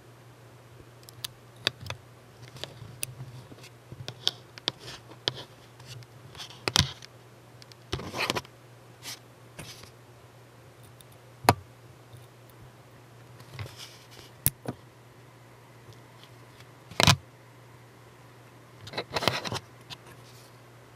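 Small curved scissors snipping fine model-rigging line into short pieces: irregular sharp clicks as the blades close, with light handling rustles between cuts and a few louder clicks in the second half. A faint low hum runs underneath.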